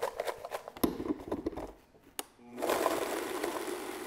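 A Vitamix blender jar of crackers and wet chopped vegetables is lifted and shaken, with clattering knocks. After a short pause about two seconds in, the blender motor starts and runs steadily, grinding the crackers to crumbs.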